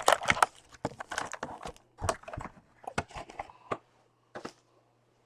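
Foil trading-card pack wrapper crinkling and tearing as a pack is opened by hand: dense crackling for the first two seconds, then scattered crinkles that stop about four and a half seconds in.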